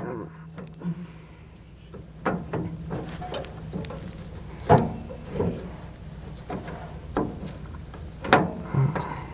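Irregular light metallic clicks and short squeaks as a washer and nut are fitted by hand onto a riding mower's drive-belt pulley bolt, with the sharpest clicks about halfway through and near the end.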